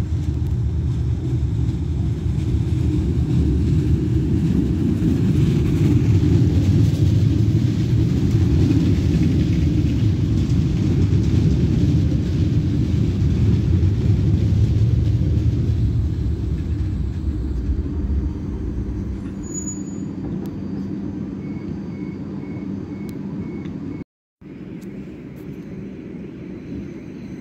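CRRC light-rail tram going by: a loud low rumble of wheels and traction motors that builds, then fades from about sixteen seconds in. Later comes a short run of faint high beeps.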